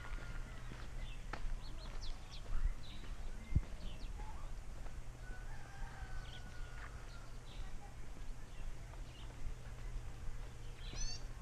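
Footsteps on a dirt path, with small birds chirping and calling all around: many short chirps, and a quick run of falling notes near the end.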